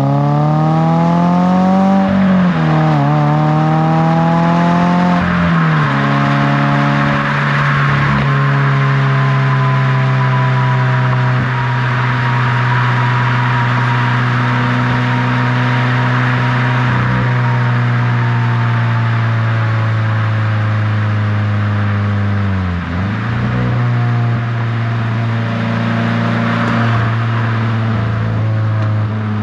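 Toyota GR86's 2.4-litre FA24 flat-four through a GR Performance dual exhaust, heard at the tailpipe under acceleration on the highway. The revs climb with two quick drops in pitch in the first few seconds as it upshifts, then settle into a steady cruising drone that slowly falls, with another brief dip in revs about two-thirds of the way through.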